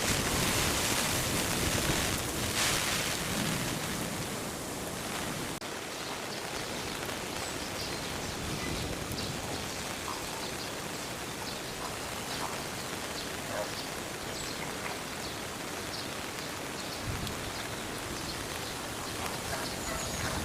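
Steady hiss of falling water, louder for the first few seconds, with faint short high chirps scattered through it.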